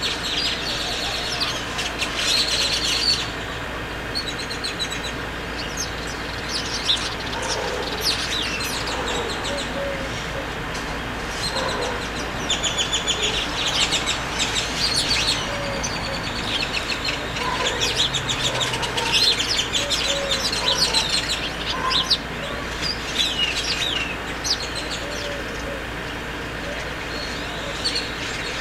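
Birds chirping and calling: many short, high calls, often in quick series, with a few lower calls scattered through.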